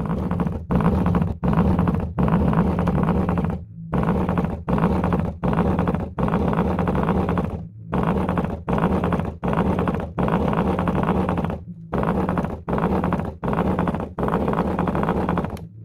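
LG subwoofer driver playing loud bass in a chopped rhythm: three short pulses, then a longer one, repeated over and over with brief silences between them.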